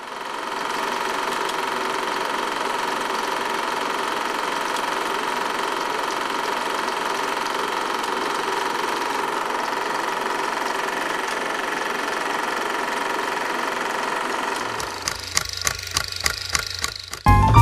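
Film projector sound effect: a steady mechanical whirr and rattle. About fifteen seconds in it gives way to a run of regular clicks, three or four a second, and piano music starts right at the end.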